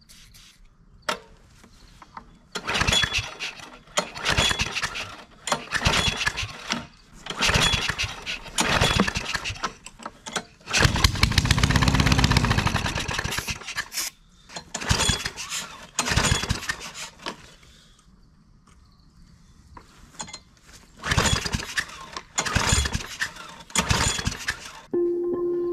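2000s Briggs & Stratton lawn mower engine, unmuffled, firing in bursts of about a second that keep cutting out. Near the middle it holds one longer run whose speed rises and then falls. The engine won't keep running, which the owner puts down to debris in the fuel sediment bowl.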